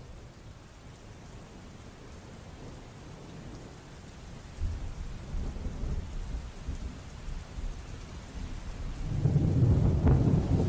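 Thunderstorm sound effect: rain with rolling thunder, the rumble swelling about halfway through and loudest near the end.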